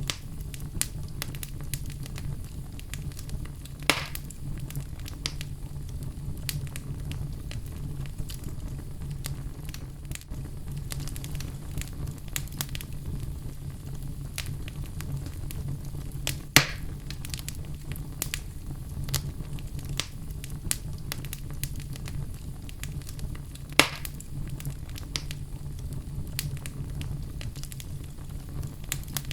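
Wood fire burning in a fireplace: a steady low rumble of flames with scattered crackles throughout and three louder pops, at about 4, 16 and 24 seconds in.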